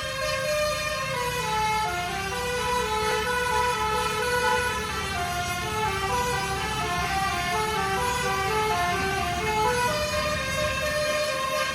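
Basuri telolet bus horn playing a melody: a continuous run of clear stepped notes, one after another, over the low rumble of the bus engine.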